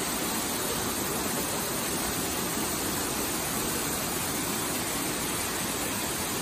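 Waterfall pouring over rock: a steady, unbroken rush of falling water.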